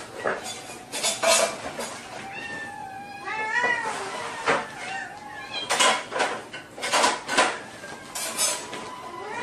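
Several kittens meowing insistently in high calls that slide up and down, begging for food, mixed with repeated sharp clinks of dishes and tableware as food is handled. The meows bunch together a few seconds in and again near the end.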